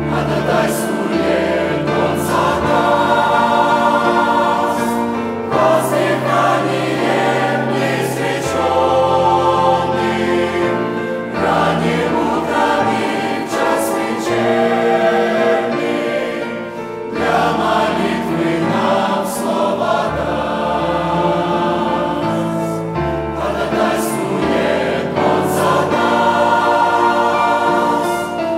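A church choir singing a slow hymn in several parts, with held low bass notes moving in steps underneath.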